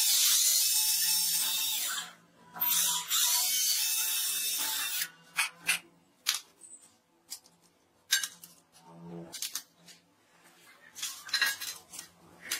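Cordless drill boring into the wooden arm of a home-made spot welder, running in two stretches of about two and a half seconds each. After that, small clicks and knocks of parts being handled.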